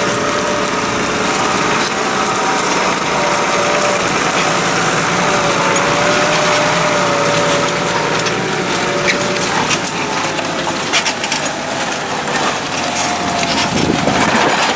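Tractor engine running steadily under load while pulling a plough through stony ground, with scattered clicks and knocks in the later part.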